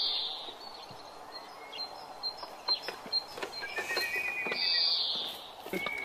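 Outdoor ambience with birds chirping, including a short twittering trill a little past halfway. A high buzz sounds near the start and again about two-thirds through, with a few light clicks scattered through.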